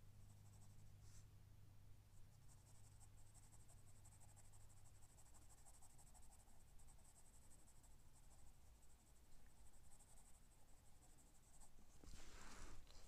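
Graphite pencil scratching faintly on drawing paper in quick, short shading strokes. Near the end there is a louder rustle as the hand comes off the paper.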